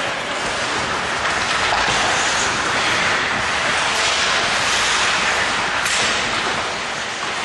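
Ice hockey skate blades scraping and carving the ice with stick clatter during live play, a steady hiss over the rink's background hum, with one sharp stick-on-puck crack about six seconds in.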